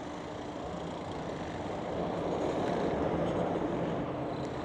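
Traffic noise: a road vehicle passing, swelling and fading over a few seconds, over a faint steady hum.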